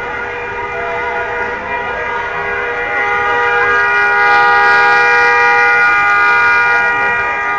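Several car horns held down together in a long, steady blare that swells louder around the middle, with crowd voices underneath.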